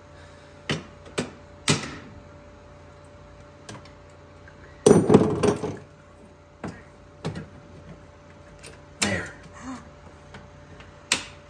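Metal hardware of a UTV tilt-seat kit clicking and knocking as a clamp is forced into the seat mount by hand: scattered sharp clicks, with a louder clattering rattle about five seconds in.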